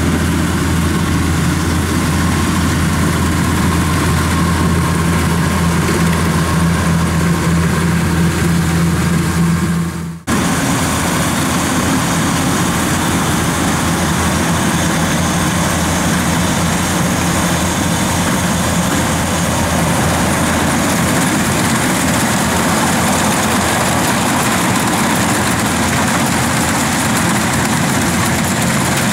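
Kubota rice combine harvester's diesel engine running steadily as the machine cuts rice. About ten seconds in the sound breaks off for an instant and comes back with less of the low hum and more hiss.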